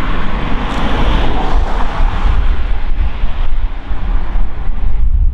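Heavy wind rumble on the microphone over the distant, steady noise of an approaching steam locomotive, LNER Peppercorn A1 Pacific 60163 Tornado, hauling its train. The train noise swells about a second in and then eases a little.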